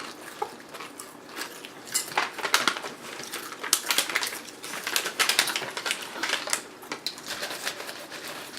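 Dense, irregular clicking and crunching of crunchy snacks, spicy peanuts and potato sticks, being handled and eaten, busiest through the middle.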